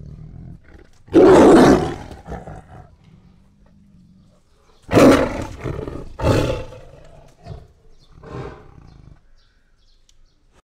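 Tiger roaring: one loud roar about a second in, two more around the five- and six-second marks, then a couple of fainter, shorter ones.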